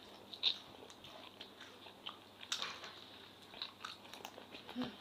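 Close mouth sounds of eating spicy instant noodles: quiet chewing and slurping, with scattered short clicks.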